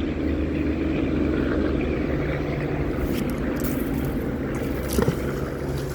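Steady low drone of vehicle engines, like traffic running nearby, with a brief sharp click about five seconds in.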